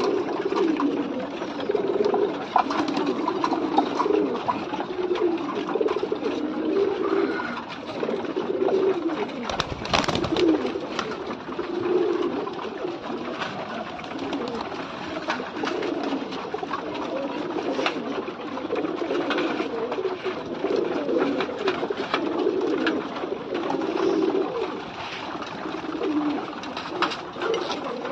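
Several domestic pigeons cooing over one another in a continuous low warble, with scattered sharp clicks and one louder knock about ten seconds in.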